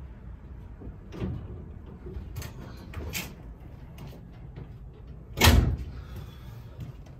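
A 1969 Camaro's door opening and a few knocks as a person climbs out of the car, then the door slammed shut once about five and a half seconds in.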